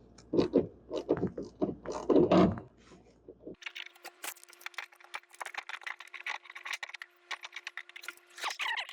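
A few seconds of low mumbled speech, then rapid small clicks and scrapes of plastic dash trim and retaining clips being pried and handled, over a faint steady hum.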